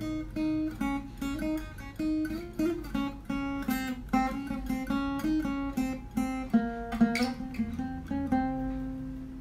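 Acoustic guitar playing a melody of quick single picked notes. It ends on a long held note near the end.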